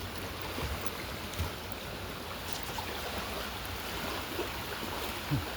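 Steady rushing of a river running high after heavy rain, with about three soft low thumps.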